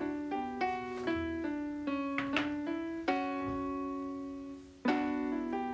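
Background keyboard music with a piano sound: notes and chords struck one after another and left to fade, with a long chord about three seconds in dying away before a new chord is struck near the end.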